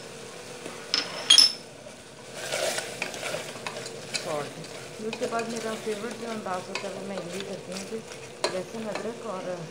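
A spatula stirring and scraping mutton and spice masala around an aluminium pressure-cooker pot, with the meat sizzling as it fries. A couple of sharp clinks about a second in are the loudest sounds.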